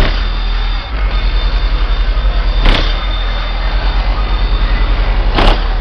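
Two FB Audio 3000 W RMS subwoofers driven by a Taramps 30k amplifier playing a very deep bass at high level, heavily distorted on the recording. Two sharp cracks come about a third and about nine-tenths of the way through.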